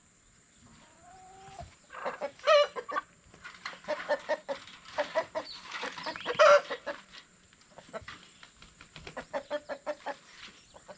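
Chickens squawking and clucking in rapid runs of short calls, loudest about two and a half and six and a half seconds in: alarm calls from flock birds being chased and caught by hand.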